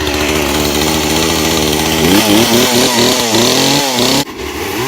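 Craftsman 18-inch two-stroke gas chainsaw running, freshly started: steady at first, then from about two seconds in its pitch swings up and down as it is revved and worked into a first cut in wood. It breaks off briefly near the end.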